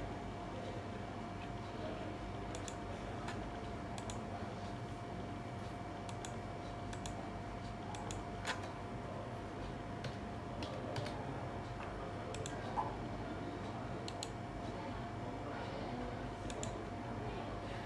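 Sparse clicks of computer keys being pressed, roughly one every second or so, with a somewhat louder click a little past halfway, over steady room noise and a faint steady tone.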